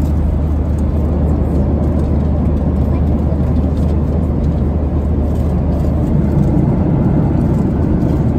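Steady cabin noise of a Boeing 737-900 airliner in flight: a low drone of engines and rushing air, getting slightly louder in the last couple of seconds.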